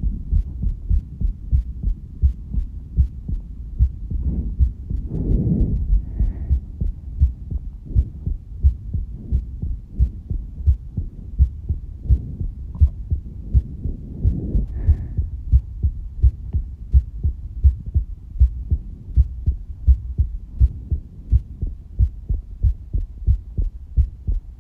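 A person's heartbeat, amplified: a steady, even train of low thuds. Two swells of rushing noise come in, about five and fifteen seconds in.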